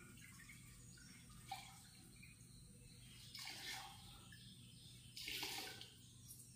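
Faint sloshing and dripping as a wet mop head is dunked and squeezed by hand in a plastic bucket of water, in a few short splashes.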